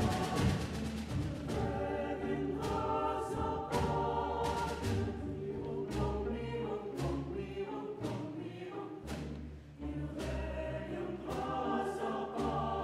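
Chamber choir singing in parts over a small instrumental ensemble. Sharp percussion strikes recur at uneven intervals, and deep sustained bass notes sound in the second half.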